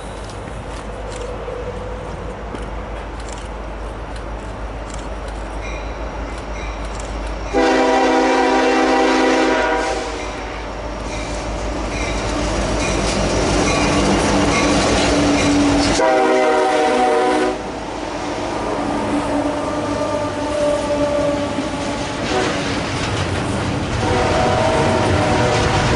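Diesel locomotive air horn, on Union Pacific 1983's train, sounding a multi-note chord in three long blasts: about 8 seconds in, again about 16 seconds in, and again near the end. Between blasts the train's rumble and wheel noise continue.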